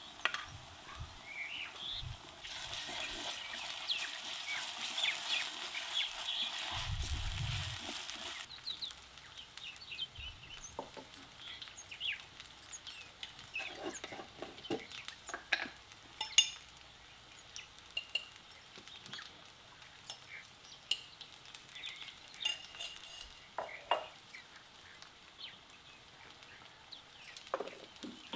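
Food frying in oil in a metal kadai, a steady sizzle that cuts off abruptly about eight seconds in. After that come scattered clinks and taps of a small spoon against spice jars and the pan rim as spice powders are added.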